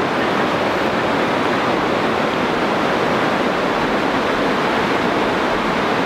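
Steady rush of flowing river water close to a microphone held at the water's surface.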